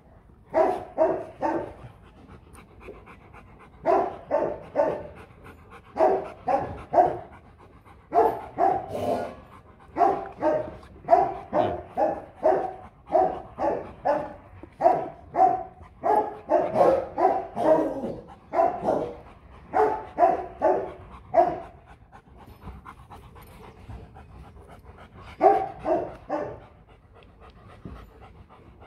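Large Rottweiler panting hard, about two to three breaths a second, in long runs with a brief lull near the end.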